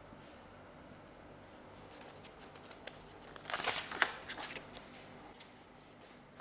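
Marker pen writing on a whiteboard: a faint run of short rubbing strokes starting about two seconds in, loudest around the middle.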